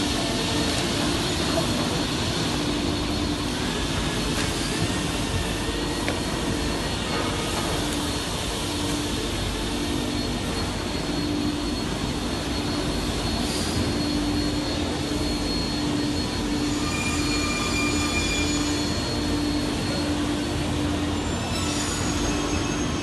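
Steady din of a veneer slicer and other woodworking machinery running on a factory floor, with a low hum that keeps breaking off and returning every second or two and a thin, steady high whine over it.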